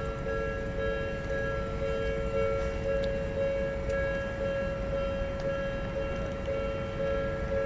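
Japanese railway level-crossing alarm sounding continuously: an electronic two-tone "kan-kan" bell alternating between two pitches, over a low steady rumble.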